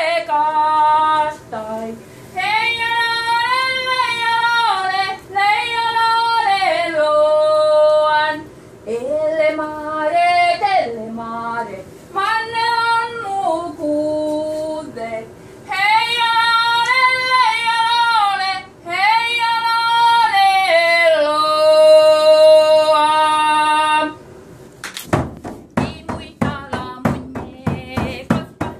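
A woman singing a traditional Sami joik unaccompanied, in short phrases of held, wavering notes with brief pauses between them. About 25 seconds in the singing stops and a quick series of sharp instrument notes begins, about three a second.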